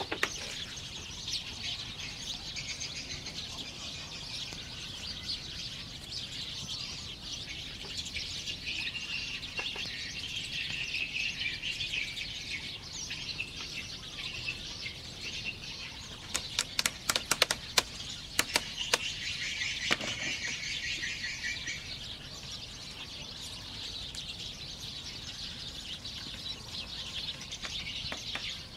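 Many birds chirping and calling all through. About two-thirds of the way in comes a quick run of sharp knocks from bamboo being handled on the roof.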